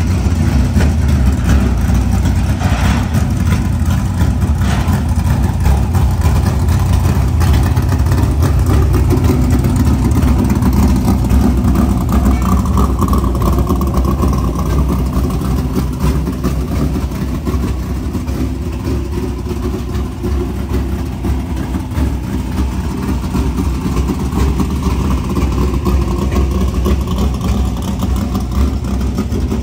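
Dirt-track race car engine running on open exhaust, a loud, steady low rumble.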